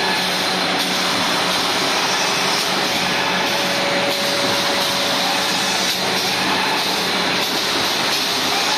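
Automatic leno mesh bag making machine running, a steady dense mechanical noise with a faint high whine.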